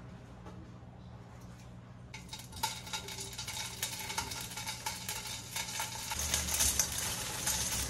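Ham slices snipped with kitchen scissors into a hot wok, the pieces starting to sizzle about two seconds in, the sizzle growing louder toward the end, with the clicks of the scissor snips.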